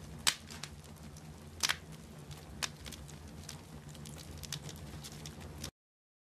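Wood fire crackling: irregular sharp pops over a low steady hum, cutting off abruptly to silence near the end.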